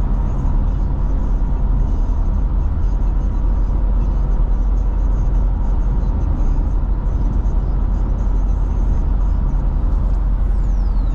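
Steady low rumble of a car cruising at highway speed, heard from inside the cabin: road, tyre and engine noise.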